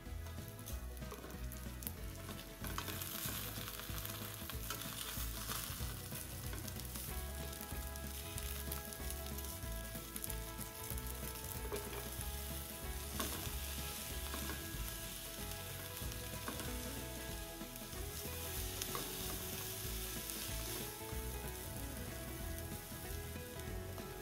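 Kurumabu (wheel-shaped dried wheat gluten) frying in sesame oil in a frying pan: a steady sizzle that swells louder in a few stretches as the pieces are turned over with tongs and sliced onion is added.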